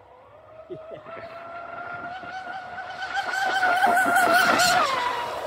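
Electric motor of a 3D-printed RC catamaran boat running on 8S batteries at full speed: a high whine that builds, wavers and grows loudest along with the hiss of spray, then drops sharply in pitch near the end.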